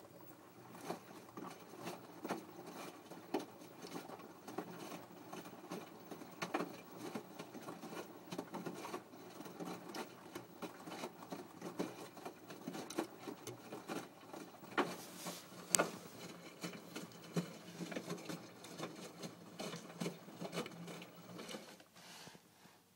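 Washing machine drum turning a load, with a steady low churn and many irregular soft knocks and pattering clicks. It stops about a second before the end.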